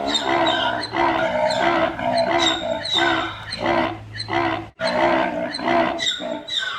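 Zebra calling: a fast run of repeated braying barks, about two a second, briefly cut off a little past halfway before the calls resume.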